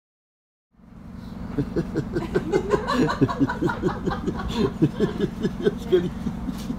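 After a short stretch of silence, a person laughs in quick repeated bursts over a steady low drone from the train.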